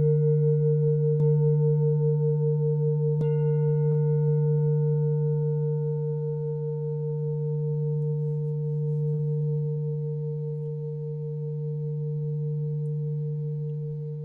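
Singing bowl struck twice, about a second and three seconds in, ringing with a deep hum and a higher tone that wavers in a slow pulse. The ringing slowly fades away.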